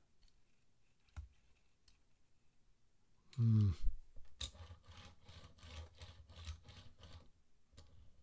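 Die-cast Hot Wheels funny car rolled back and forth on a hard table, its small plastic wheels rumbling with a regular knock about three times a second; one of its wheels is out of round. Shortly before the rolling there is a brief, loud sound that falls in pitch.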